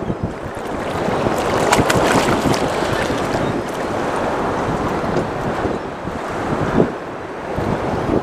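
Wind buffeting the microphone over waves slapping around a small open boat, with a few brief knocks about two seconds in and again near the end.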